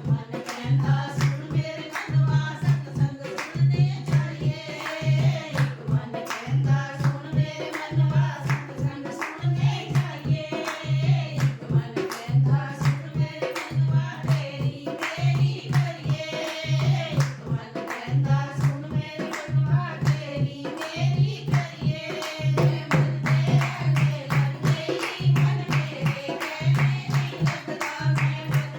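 Devotional bhajan sung by a group in Punjabi, over a steady low drum beat with hand clapping.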